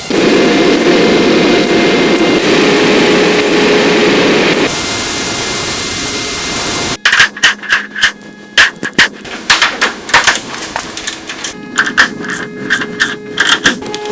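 A loud, steady machine noise runs for about half the time, then cuts off abruptly. It is followed by quick, irregular metal-on-metal hammer strikes that ring after each blow, typical of hammering on vehicle parts in a repair workshop.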